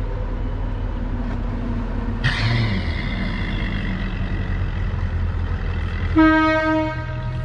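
Steady low rumble of idling outboard motors on bass boats waiting in a lock chamber. A hiss joins about two seconds in, and a single short horn blast sounds near the end.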